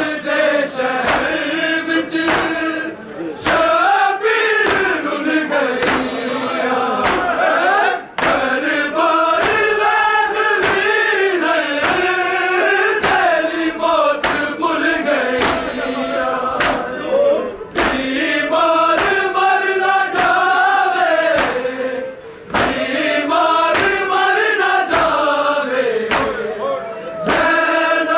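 A crowd of men chanting a Shia mourning lament (noha) in unison while beating their chests together (matam). The beating is a sharp slap on an even beat, a little under twice a second.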